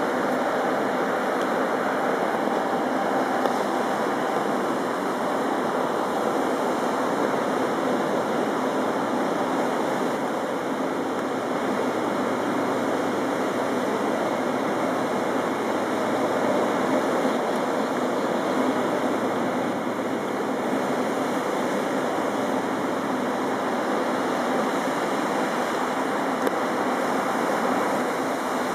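Steady rushing and churning of water from a pilot boat's bow wave and wake as it runs fast alongside a ship's hull.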